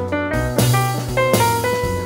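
Background music: an upbeat jazz tune with drum kit and piano, with a steady beat.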